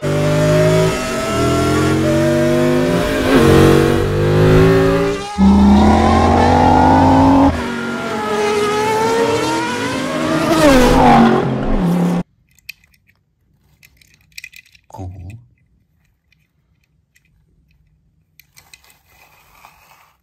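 Race car engine sound effects from an animated film: several engines revving and passing at speed, their pitch rising and falling. They cut off suddenly about twelve seconds in, leaving near silence with a few faint clicks from a toy car being handled.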